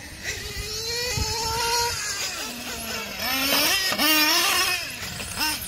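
Several nitro radio-controlled cars racing together, their small glow-fuel engines giving overlapping high-pitched notes that rise and fall as they accelerate and lift off through the corners. The engines are loudest about three to four seconds in, as cars pass close by.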